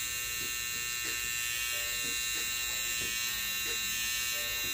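Babyliss Pro Gold FX hair trimmer running with a steady high-pitched buzz as its blade edges the hairline at the temple.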